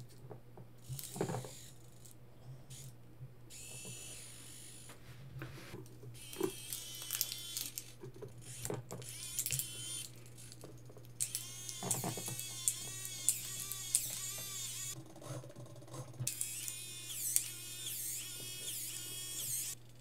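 Small hobby servo motor whining in bursts as it swings a toothbrush on its arm back and forth, the whine rising and falling in pitch with each sweep. A few clicks and knocks come between bursts, over a steady low hum.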